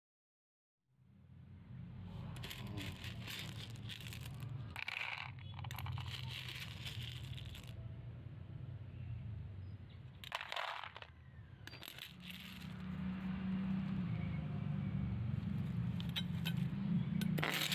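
Small hard objects clattering and rattling in several bursts over a steady low hum. It starts suddenly about a second in, after dead silence.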